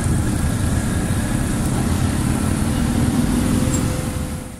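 Motorcycle engine running while riding slowly through traffic, under a heavy, fluctuating rumble of wind and road noise on the microphone. The sound cuts off abruptly at the very end.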